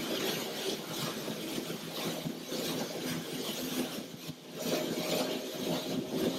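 Steady rushing-water and wind noise from a water-skiing run behind an electric ski boat, heard as film soundtrack played over a hall's speakers.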